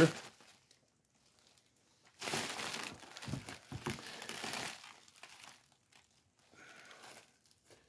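Bubble wrap crinkling as it is pulled off a figure, for about three seconds starting about two seconds in.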